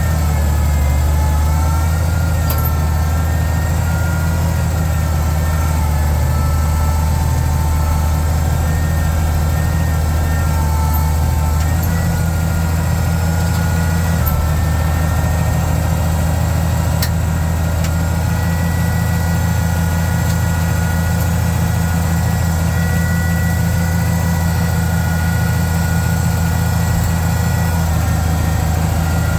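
Oliver 1650 tractor's six-cylinder engine idling steadily, with its low note shifting slightly about twelve seconds in.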